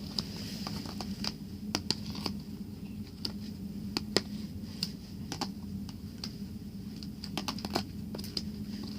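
Dried-out slime being stretched and pulled apart by hand, giving off irregular small sharp clicks and crackles.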